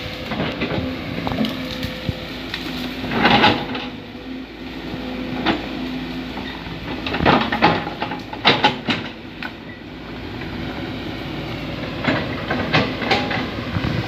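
Sumitomo hydraulic excavator's diesel engine running steadily while its bucket pushes and crushes a pile of dry brush and branches, with irregular cracking and snapping of wood.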